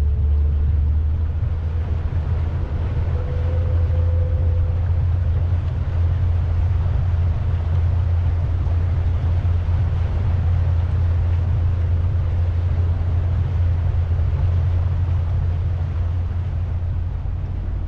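Pontoon boat under way: its engine's steady low rumble, with a hiss of water and wind over it.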